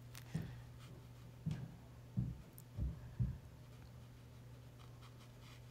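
Steady low hum with five soft, low thumps over the first three and a half seconds, then only the hum.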